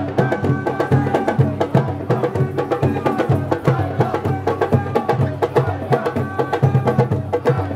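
Lively music with a fast, even percussion beat and a wavering melody line over it.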